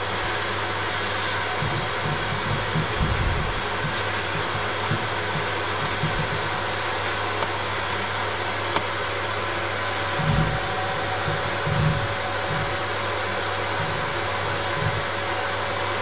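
Electric drain-cleaning spiral machine running steadily, its rotating spiral working through a blocked soil pipe. A few low thuds come about three, ten and twelve seconds in.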